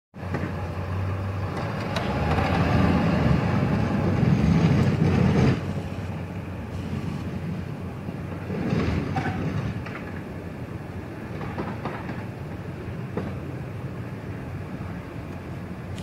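Snowplow truck running as it works a lot, its engine louder for a few seconds while it pushes snow, then dropping suddenly to a lower, steady running.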